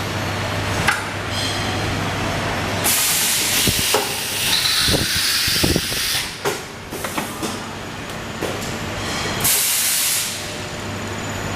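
High-frequency plastic welding machine for medical bags at work: a steady mains hum, then two loud bursts of air hiss about six seconds apart, with clicks and knocks of the press between them.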